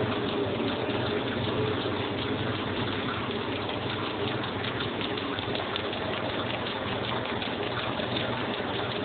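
Ferguson Hydrovane rotary-vane compressor, driven by a temporary belt, running steadily up to speed with the tractor engine, giving a steady mechanical running noise and a thin whistle. It is being run in on running-in oil to free it up.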